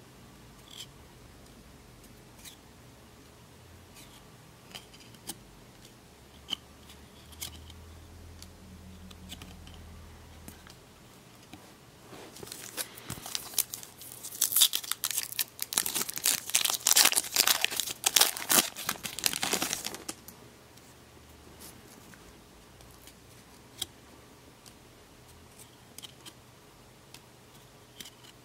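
Faint clicks of a stack of Garbage Pail Kids trading cards being flipped through by hand, then, about halfway in, a card pack's wrapper torn open and crinkled for several seconds, the loudest sound.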